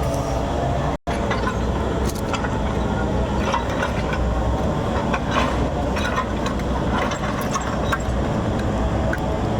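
Backhoe's diesel engine running steadily, with scattered knocks and cracks of the machine working. The sound drops out briefly about a second in.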